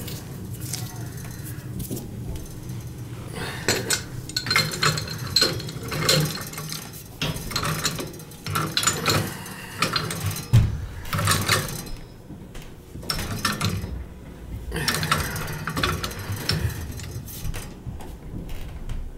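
Metal tools clinking and scraping on the gas pipe and union fittings while the gas line is reconnected: irregular clinks and knocks in clusters, with short quieter gaps.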